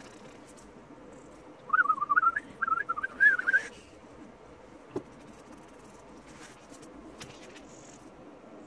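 A warbling whistle of about two seconds, wavering quickly up and down in pitch, over faint pencil scratching on paper. A single sharp click comes about five seconds in.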